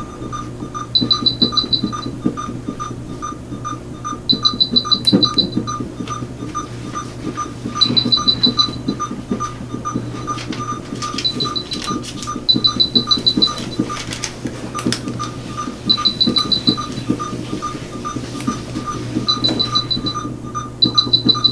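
A surgical patient monitor beeps in time with the anaesthetised cat's heartbeat, about three short beeps a second, over a steady hum. Every three to four seconds a quick run of higher-pitched beeps sounds.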